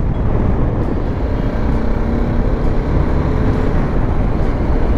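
Wind rushing over the microphone of a moving motorcycle, a steady dense rumble, with the BMW G310GS's single-cylinder engine humming faintly underneath at a steady cruise.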